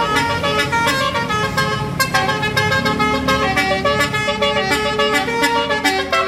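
Bus 'telolet' multi-tone horn playing a quick melody of short stepped notes, with a low rumble underneath.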